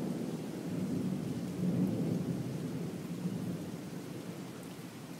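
Thunder rumbling over steady rain; the rumble swells about two seconds in and fades away toward the end.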